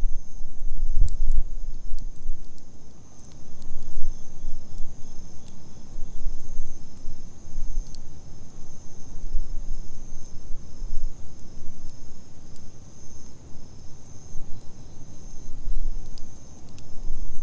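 Campfire burning with scattered small crackles over an uneven low rumble, while insects keep up a steady high trill.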